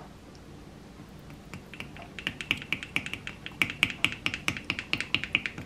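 Metal spoon clicking and scraping against the sides of a small clay yogurt jar as Nutella is stirred into thick yogurt: not easy to stir. The clinks begin about a second and a half in and quickly settle into a fast rhythm of about five or six a second.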